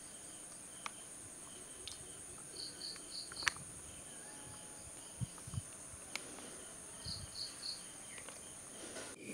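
A steady high-pitched insect chorus, cricket-like, with two short runs of three or four high notes and a few faint clicks and soft knocks.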